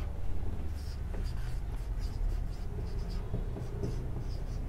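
Marker pen writing on a whiteboard: a series of short, irregular squeaky strokes of the felt tip against the board, over a low steady hum.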